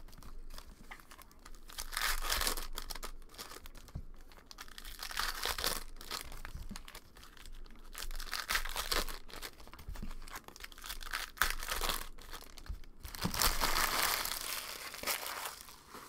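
Foil wrappers of Panini Prizm Football hobby packs being torn open and crinkled by hand, in several separate bursts of tearing and crinkling with quieter handling between them.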